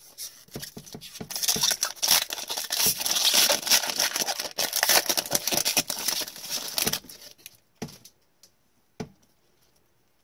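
Foil wrapper of a hockey card pack being torn open and crinkled by hands in nitrile gloves: a dense rustle lasting about six seconds. It is followed by a couple of light taps as the cards are pulled out.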